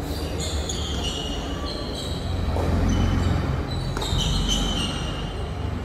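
Tennis rally on an indoor hard court: sneakers squeaking on the court surface again and again, with a racket hitting the ball about four seconds in, over a steady low rumble of the hall.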